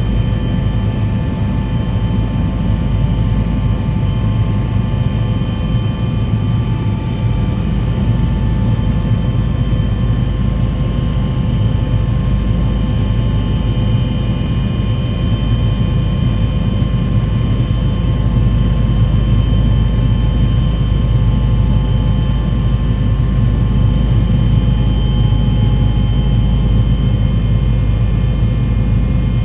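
A steady mechanical drone: a constant low rumble with a steady whine on top, unchanging throughout.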